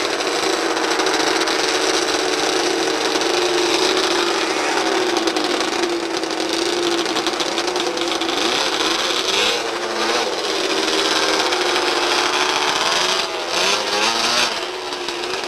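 Several two-stroke snowmobile engines running and revving together, their pitches wavering up and down and overlapping.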